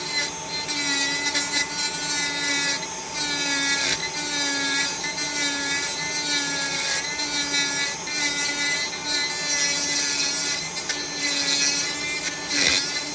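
RAM 40,000 RPM micro motor carver whining as its burr cuts into wood. The pitch sags and recovers in short strokes about once a second as the burr is worked along the recess under a depth-stop sleeve.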